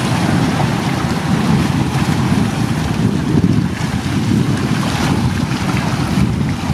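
Wind blowing across the microphone as a steady, gusty low rumble, with waves washing against shoreline rocks.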